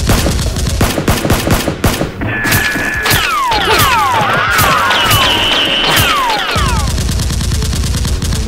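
Rapid bursts of dubbed-in gunfire sound effects, shot after shot in quick succession. From about two seconds in until past the six-second mark, high whistling tones and falling whistles sound over the shooting.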